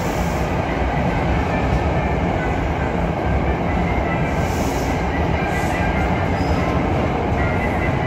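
NJ Transit single-level passenger coaches rolling past a station platform: a steady, even rumble of wheels on rail, with two brief high hisses about four and a half and five and a half seconds in.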